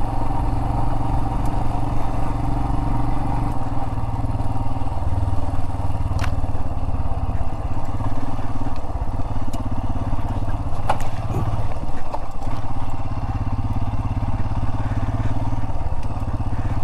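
Adventure motorcycle engine running steadily while riding over sand and loose rocks, with a few sharp knocks of rock striking the bike; one of them is the rider's heavy adventure boot hitting a rock.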